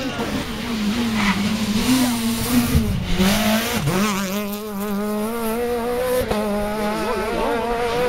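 Rally car engine held at high revs as the car drives through the stage. Its pitch dips briefly twice, about three and four seconds in, then holds steady.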